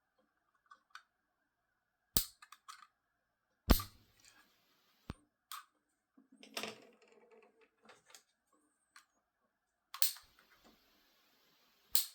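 Handling noise: a series of separate sharp clicks and knocks, the loudest about four seconds in, with light rustling between them.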